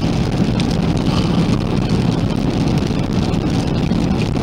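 Steady road noise inside a moving car's cabin at highway speed, tyres and engine, with scattered faint ticks of raindrops hitting the windshield.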